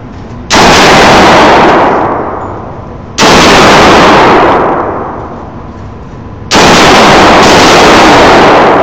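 Three gunshots about three seconds apart in an indoor concrete shooting range, each loud enough to overload the recording, with a long echo dying away after each.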